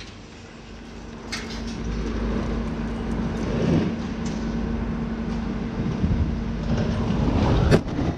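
Low rumble swelling as a 60-metre, 440-tonne industrial stack, cut at its base by explosives, topples over, with a steady hum underneath. A sharp crash near the end, the loudest moment, as the stack hits the ground.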